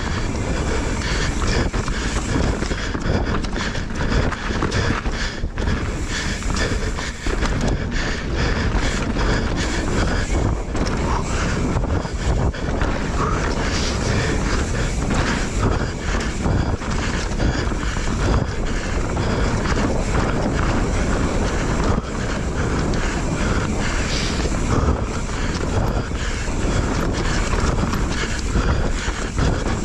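Mountain bike descending a rocky dirt singletrack: tyres rolling and crunching over dirt and stones, with the chain and frame rattling on every bump and wind buffeting the microphone.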